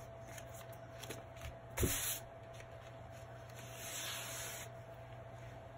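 Hands pressing a plastic silkscreen transfer onto a terry-cloth towel and peeling it off again, fuzzing it with lint to take off some of its tack: soft rubbing and rustling, with a louder pat about two seconds in.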